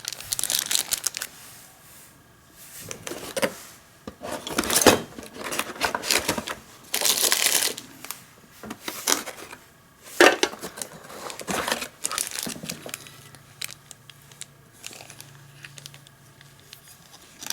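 Packaging crinkling and rustling in irregular bursts as parts are handled, with a few sharp clicks.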